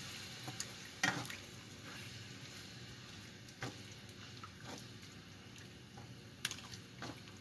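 A wooden spoon stirs chicken pieces in a pan of simmering stew, giving a few short knocks and scrapes against the pan over a faint steady sizzle.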